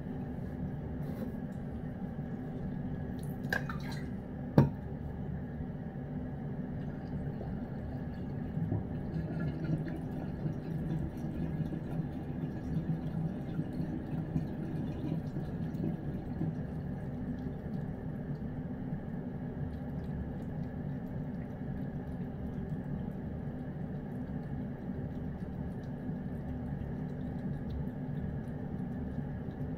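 A cat eating chicken from a bowl: small wet chewing and licking clicks over a steady low hum, with one sharp knock about four and a half seconds in.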